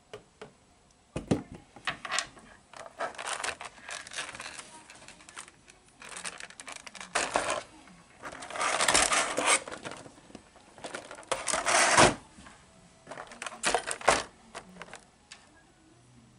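Clear plastic blister trays and box packaging being handled and pulled out: irregular crinkling and rustling with sharp clicks, loudest about nine and twelve seconds in.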